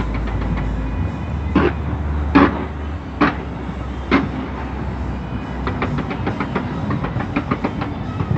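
A fireworks display going off: dense, continuous crackling with four louder bangs, about one a second, in the first half.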